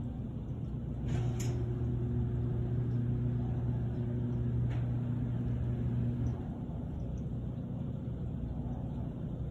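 Steady low machine hum. A louder, even low drone comes in about a second in and stops about six seconds in, with a faint click or two.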